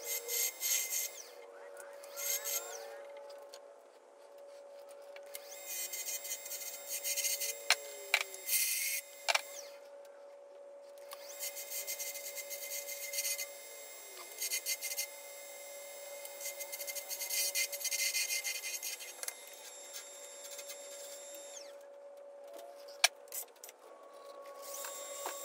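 A maple chess pawn spinning on a wood lathe, cut with a carbide turning tool in repeated passes: a scraping hiss of shavings that comes and goes, the longest pass lasting about ten seconds, over a steady whine from the lathe, with a few sharp clicks.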